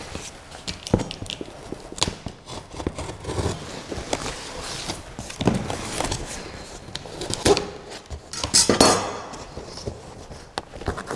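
A cardboard shipping box being cut open with scissors: blades clicking and snipping, the tape being slit, and the cardboard scraping and rustling as it is handled. There is a louder scraping rustle about two thirds of the way through.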